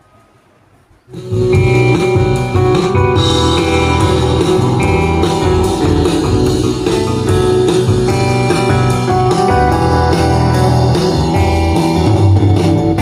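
Guitar-led music played loudly through a repaired tower speaker, starting about a second in. The faint background before it holds no loud hum: the hum was cured by resoldering a loose capacitor.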